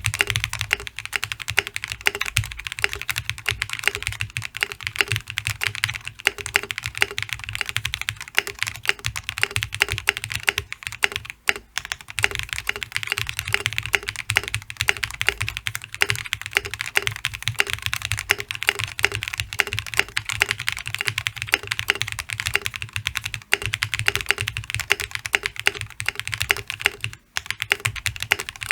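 Fast, continuous typing on a Gray Studio Space65 custom mechanical keyboard: lubed Durock POM linear switches on an FR4 plate, under Infinikey Monochrome keycaps. It pauses briefly about a third of the way in and again near the end.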